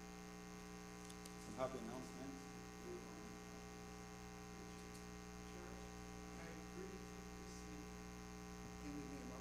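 Steady low electrical mains hum made of many even tones, from the church's sound or recording system. A brief faint voice comes in about a second and a half in.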